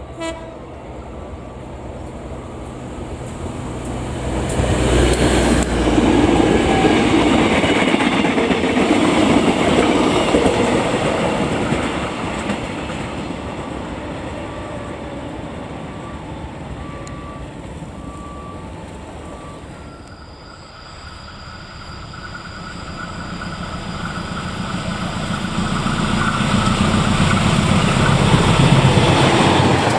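Train passing on the track, its wheels clacking over the rails. The noise swells from about four seconds in, fades after the middle, then builds again toward the end.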